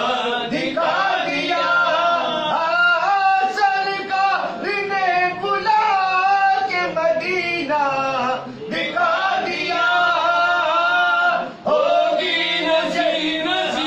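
Man singing a naat, an Urdu devotional poem in praise of the Prophet, in long held and bending vocal phrases, with a short breath break about three-quarters of the way through.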